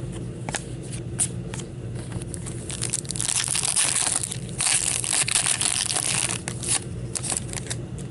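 A foil trading-card pack wrapper being torn and crumpled by hand, in two long spells of crackling about three seconds in. Light clicks and slaps from cards being handled come before and after.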